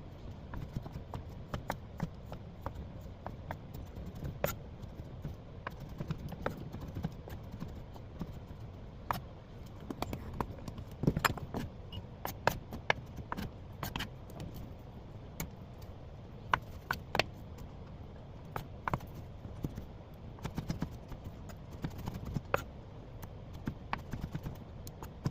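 Spatula tapping and scraping against a pan while stir-frying fried rice: irregular sharp clicks and knocks, a few every second, over a low steady background.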